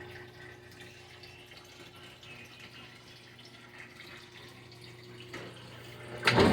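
Water running faintly into a GE top-load washing machine's tub as it fills on the super load setting, over a steady low hum. About six seconds in the fill ends and the washer's motor starts with a sudden loud mechanical noise: the newly replaced water level switch has tripped at the super level.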